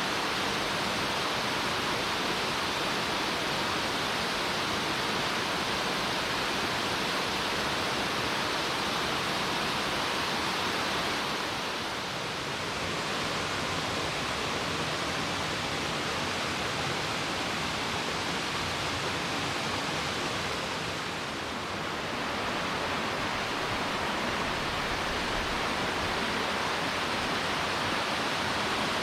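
Steady rush of a spring-fed waterfall, groundwater pouring out of gaps in the rocks and cascading down. It eases slightly twice, then returns to its even level.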